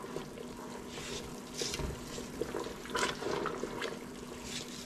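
Sugar syrup boiling and bubbling in a stainless steel pot as it is stirred, with a few scrapes and clinks of the spatula and thermometer against the pot, the clearest about one and a half and three seconds in.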